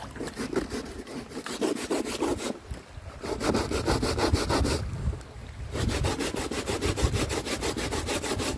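Rapid, rhythmic rasping scrapes done by hand, about eight or nine strokes a second, in three runs with short pauses between them.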